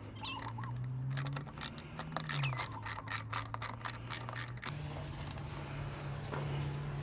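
Rapid metallic clicking as stainless steel bolts and a bracket are worked onto an outboard's lower fin. Just under five seconds in, a steady hiss of aerosol spray (WD-40) begins.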